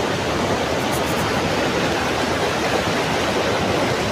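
Muddy floodwater of a swollen river rushing over rock ledges in small cascades, a steady, even noise.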